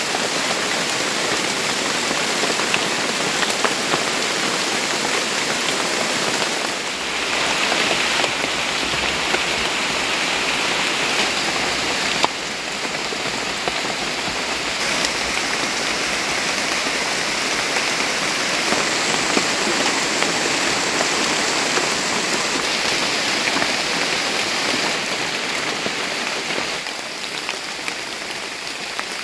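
Steady rain falling, a dense hiss with scattered drop ticks.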